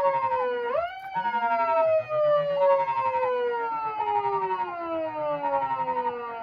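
Two electronic sirens sounding at once through loudspeakers. A Japanese police-car wail from a Patlite SAP-500BKPV siren amplifier rises quickly about a second in and then falls slowly. Over it, an ambulance-style two-tone hi-lo repeats about every 1.4 s.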